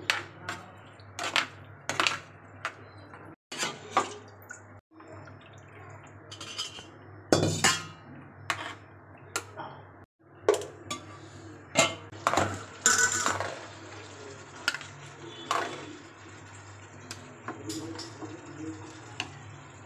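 A steel spoon clinking and scraping against a metal cooking pot, in irregular knocks throughout, over a steady low hum.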